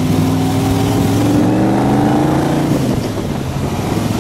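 1964 Shelby Cobra's Ford 289 V8 accelerating, its pitch rising steadily, then easing off about three seconds in, heard from the open cockpit with some wind noise. The engine sounds great.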